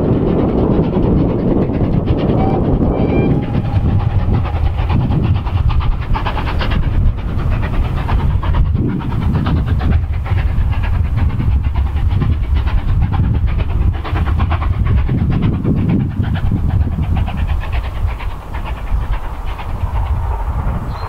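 Steam locomotive passing with a train of coaches: rapid steam exhaust beats over the rumble and click of wheels on the rails. The sound fades over the last few seconds as the train moves away.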